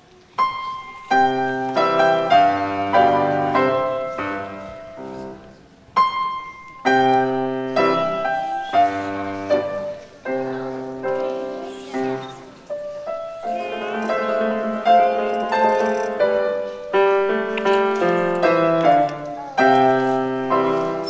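Classical piano music, melody over chords, starting about half a second in, with a short break about six seconds in.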